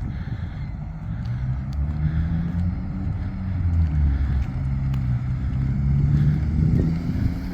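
A motor vehicle's engine hum, low and steady with its pitch drifting up and down, as of a car driving by.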